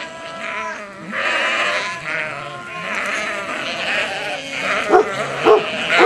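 A flock of sheep bleating, many wavering calls overlapping one another, with a few short, loud, sharp calls near the end.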